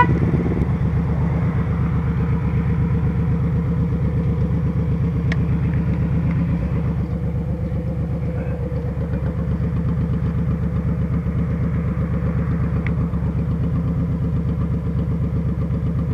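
Motorcycle engine running steadily at low speed, a regular low pulsing that eases slightly partway through.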